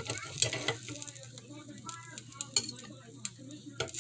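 A metal fork and knife scraping and clicking against the nonstick plates of a waffle iron as a cooked waffle is lifted out and bits are scraped off the plate. There are many sharp clicks, the loudest about half a second in and again near the end.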